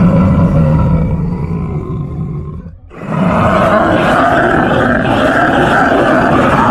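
Horror sound effect of deep, growling roars. The first fades out a little under three seconds in, and a second, harsher one starts about three seconds in and holds steady.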